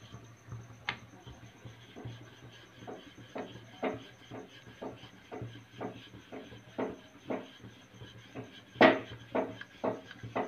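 Wooden rolling pin rolling out chapati dough on a stone board: a regular series of light knocks and rubs, about two a second, with one louder knock near the end, over a low steady hum.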